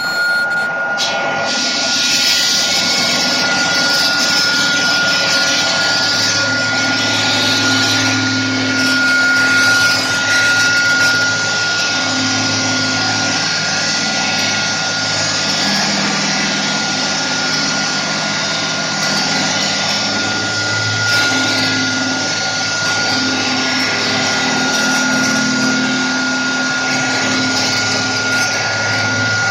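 Liomax 6x600 stone-cutting saw running steadily: a constant high whine over a dense rushing noise, with a lower hum that swells and fades several times.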